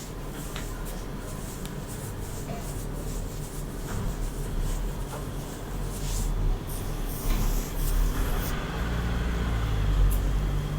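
Close-miked ASMR rubbing and brushing sounds: a low rumble with irregular swishes of hiss, heaviest a little past the middle, and a few small ticks.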